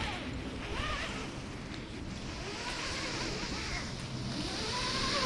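Climbing rope running through a ZigZag mechanical descent device with a Chicane as the climber lowers himself on a single line. The result is a steady hiss that grows fuller in the second half as he nears the ground.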